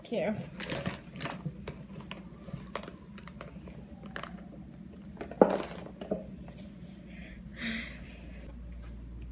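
A cloth tote bag being set down slowly on a chair: rustling and scattered light clicks and knocks, with one sharp knock about five and a half seconds in and a smaller one just after.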